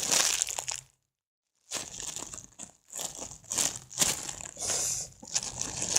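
Plastic packaging crinkling and rustling in irregular bursts as squishy toys are handled, broken by a sudden cut to dead silence about a second in.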